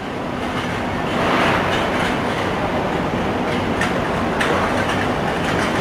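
Hong Kong double-decker electric tram running on its street track: a steady rumble of wheels on rail, with a few sharp clicks about four seconds in.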